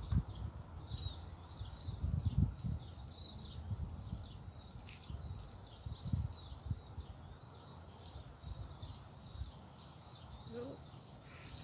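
Steady high-pitched buzz of insects in the background, with a few low bumps on the microphone about two and six seconds in.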